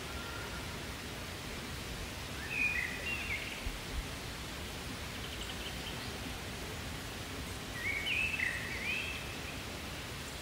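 A songbird singing two short warbling phrases of quick up-and-down notes, a few seconds apart, over a steady outdoor background hiss. A soft knock about four seconds in.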